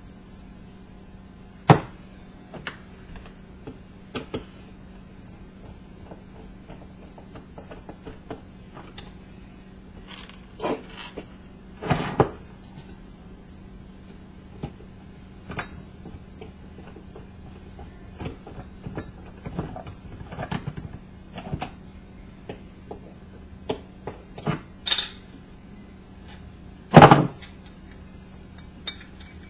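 Irregular metal knocks, clanks and scrapes of hand tools working on an old ceiling fan's housing, trying to free a bottom plate that is rusted on. The loudest knocks come about two seconds in, around twelve seconds, and twice near the end, over a faint steady hum.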